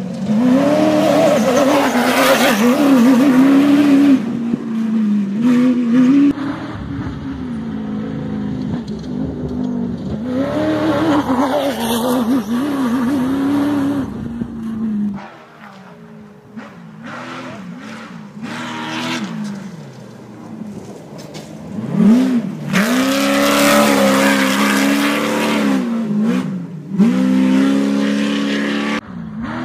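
Off-road race vehicles' engines revving hard as they blast past on a dirt desert course, the pitch rising and falling with each shift and throttle lift. Several go by in turn, with a quieter gap around the middle.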